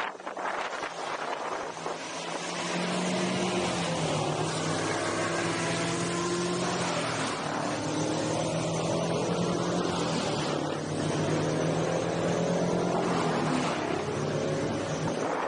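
Wind rushing over the microphone of a rider on an electric unicycle travelling at speed, with a steady pitched hum underneath that slowly slides up and down in pitch.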